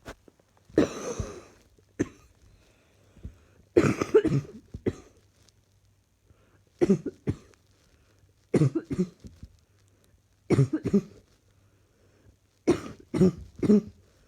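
A person who is unwell coughing in repeated fits, two or three hard coughs at a time with short pauses between, about six fits in all.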